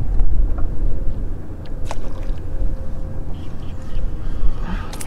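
Wind rumbling on the microphone on open water, with a few short sharp clicks or pops, one about two seconds in and a cluster near the end.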